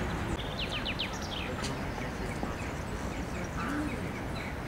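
Small songbird chirping outdoors: a quick run of high, steeply falling notes about half a second in, then fainter repeated chirps, over steady low background noise.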